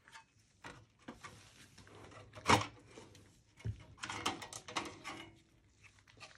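Motherboard being worked free of a small steel PC chassis: scattered clicks and knocks of the board against the metal case, one loud knock about two and a half seconds in, and a stretch of scraping and rattling around four to five seconds.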